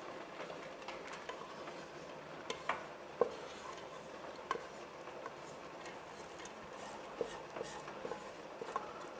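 Wooden spatula scraping and knocking against the inside of a metal cooking pot as the pot is emptied, with scattered light clinks and taps of metal.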